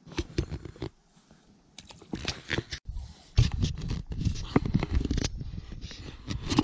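Close handling noise of hands and gear rubbing and scraping near the microphone while a small bass is held and let go into the water. It is irregular scuffs and clicks at first, growing louder and denser with a low rumble about halfway through.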